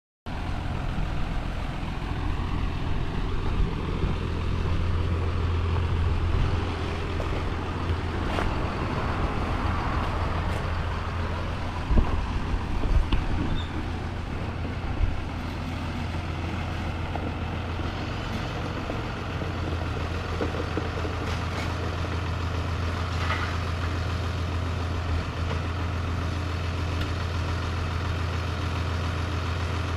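A vehicle engine running steadily with a low hum, with a few knocks about eight and twelve seconds in.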